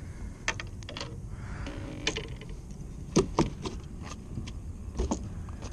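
Scattered, irregular clicks and knocks of a landing net and spinning rod being handled on a kayak as a hooked fish is netted, over a steady low rumble.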